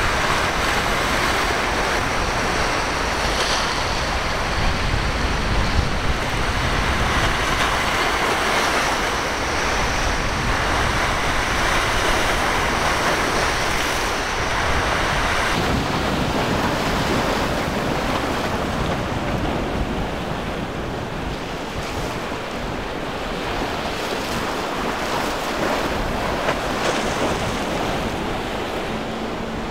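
Ocean waves breaking and surf churning, with wind buffeting the microphone; the low wind rumble eases about halfway through.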